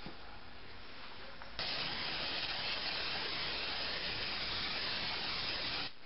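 Cooking-oil spray can hissing steadily as oil is sprayed into a mug to keep the batter from sticking. The spray starts suddenly about a second and a half in and runs for about four seconds before cutting off near the end.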